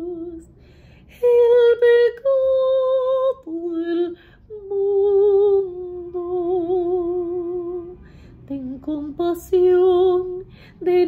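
A woman's trained operatic voice singing unaccompanied: long held notes with a steady vibrato in phrases of one to three seconds, broken by a brief pause near the start and a short stretch of quick, lower notes about eight seconds in.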